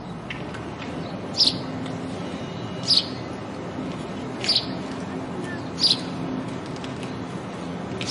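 House sparrow chirping: single loud, sharp chirps repeated about every second and a half, with fainter chirps between, over a low steady hum.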